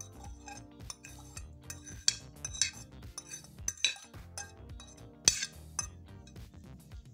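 Metal fork scraping and clinking against a ceramic plate while pushing diced potatoes and onions off it, a string of sharp clinks, the loudest about five seconds in.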